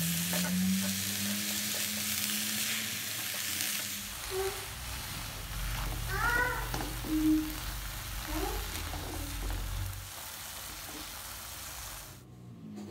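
Water spinach stir-frying in hot oil in a wok, sizzling steadily while a spatula stirs and tosses it against the pan. There is a short pitched sound about six seconds in, and the sizzling cuts off near the end.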